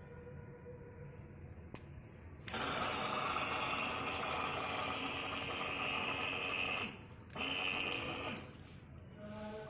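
Small electric water pump motor switched on with a sudden click, running with a steady hum for about four seconds. It stops briefly, then runs again for about a second before cutting off.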